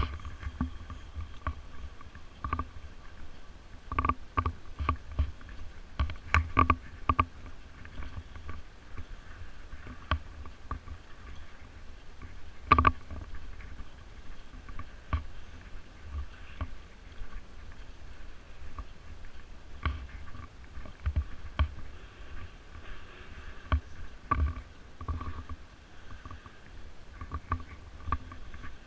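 Irregular knocks and light rattles of a body-mounted GoPro in its housing, jolted as the wearer walks, over a low rumble of wind and handling noise on the microphone.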